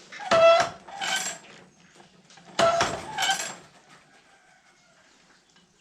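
Woodland Mills manual tooth setter being cycled on a sawmill bandsaw blade: two rounds of a pair of sharp metal clanks about a second and a half apart. Each clank rings briefly with a clear pitch as a tooth is set and the blade is advanced.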